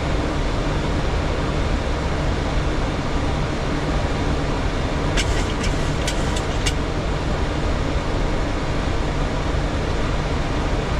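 Steady rushing cabin noise on a Boeing 737 flight deck in flight on approach, even and unchanging. A short run of light clicks comes about five seconds in.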